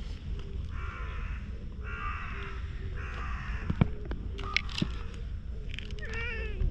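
A crow caws three times, about a second apart, with two sharp knocks after the third caw. Near the end the cat gives a short meow.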